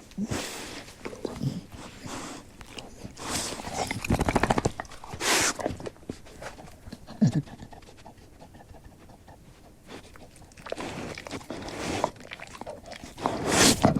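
Labrador retriever breathing and panting in irregular breaths, with one rattling breath about four seconds in and a short low vocal sound a little after seven seconds.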